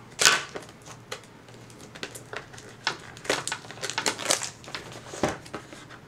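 Scissors snipping through the clear plastic seal on a cardboard product box, with the box being handled: irregular clicks, snips and crinkles, the loudest a sharp snap just after the start.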